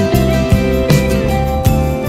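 Background music with held notes over a regular beat.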